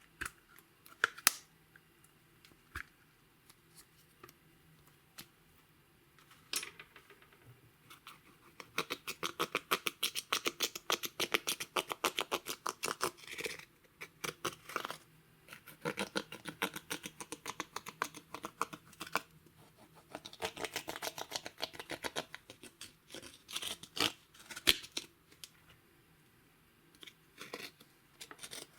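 Slime being worked by hand, giving sticky clicking and popping: a few sharp clicks at first, then from about eight seconds in long runs of rapid clicks, about ten a second, in bursts with short pauses.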